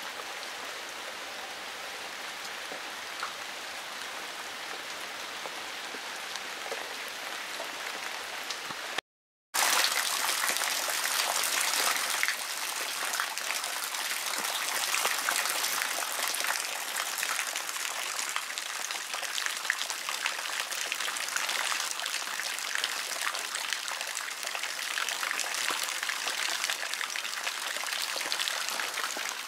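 Steady rain hissing and pattering on wet paving stones. About nine seconds in the sound cuts out for a moment and returns louder and brighter: rain with water pouring from a roof gutter downspout and splashing.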